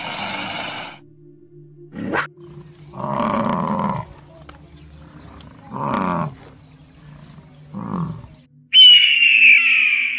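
A run of animal calls over a faint steady drone: a cougar's harsh, noisy scream at the start, a few short low calls from bison in the middle, then a bald eagle's high, shrill call, the loudest sound, starting about three-quarters of the way in.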